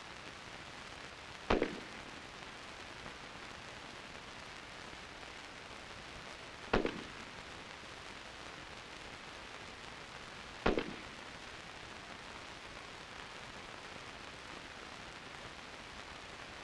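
Three single M16 rifle shots, fired several seconds apart as the rifle is zeroed on the 25-meter target. Each is a sharp crack with a short tail, over a steady hiss of old film soundtrack.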